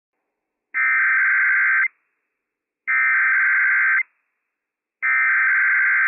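Emergency Alert System SAME header from NOAA Weather Radio: three identical stretches of rapid digital screeching, each a little over a second long and about a second apart. The header announces the alert, here a Required Weekly Test.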